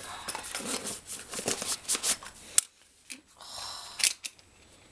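Rustling and scraping of a padded nylon lens pouch being handled and lifted, with several sharp plastic clicks and a longer scraping stretch about three and a half seconds in.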